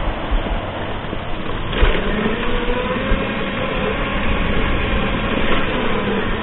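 A knock, then from about two seconds in a motor vehicle's engine running steadily, its pitch rising a little and easing back.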